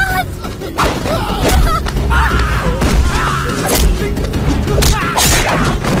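Action-film fight-scene soundtrack: background score under a series of sharp punch and body-impact hits with whooshes, and voices crying out.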